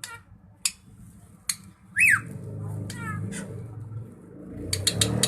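Drongo singing: sharp chips, a whistle that slides downward about two seconds in, then a quick run of notes, with a fast burst of clicks near the end, over a low background rumble.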